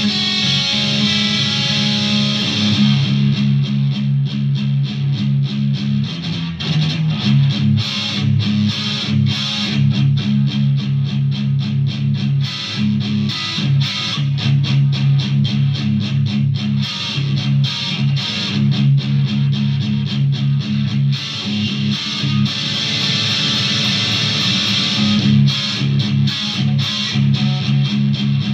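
Electric guitar played through effects pedals: held chords at the start, then a long run of fast picked notes from about three seconds in, then held chords again near the end.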